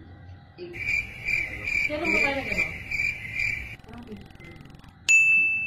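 Cricket-like chirping, about three pulses a second, lasting about three seconds. Near the end a sudden steady high beep starts and is the loudest sound.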